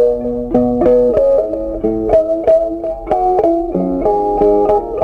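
Background music: a plucked guitar playing a picked melody over changing chords.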